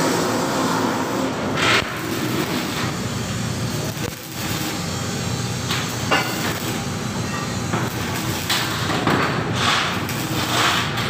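Stick arc welding on a steel frame joint: the arc's steady crackling hiss, with a brief drop about four seconds in.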